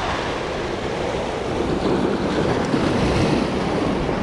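Sea surf surging and washing over jetty rocks, a steady rush that swells a little louder about halfway through.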